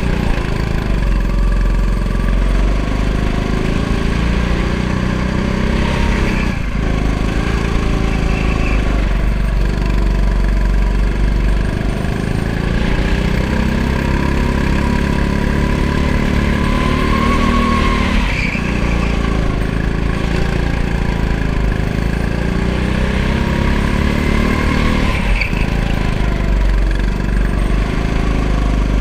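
Go-kart engine running hard on track laps, heard from on the kart, its revs rising and falling continuously and dropping sharply three times.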